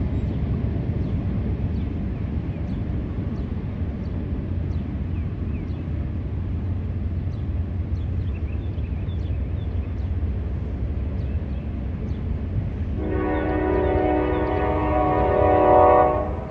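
Norfolk Southern intermodal freight train climbing a grade, a steady low rumble of wheels and engines. About 13 seconds in a locomotive air horn sounds a held chord for about three seconds, growing louder before it cuts off.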